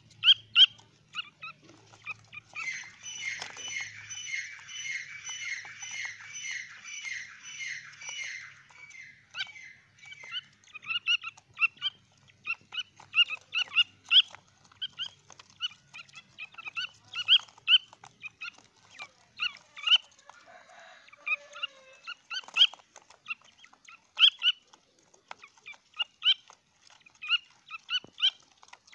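Young grey francolins calling in a cage: a quick run of a dozen or so falling calls at about two a second, then scattered sharp, short peeps.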